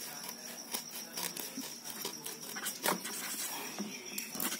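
Scattered light clicks and rustles of a plastic-wrapped package and a thin metal tool being handled on a leather surface, with one sharper click about three seconds in.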